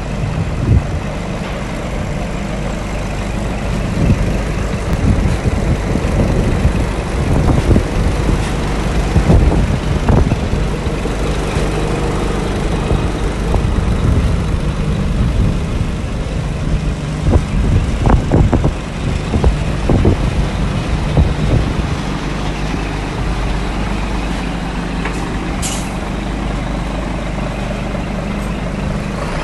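2005 Scania R420 tractor unit's 12-litre straight-six diesel idling steadily, with a few irregular knocks in the middle stretch. Near the end comes one short hiss of released air from the truck's air system.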